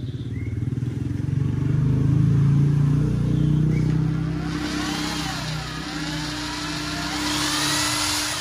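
Makita two-function (drill and hammer) 780 W electric drill running and boring into a wooden block, its motor speed rising and falling. A harsher, higher cutting sound joins in from about four and a half seconds in.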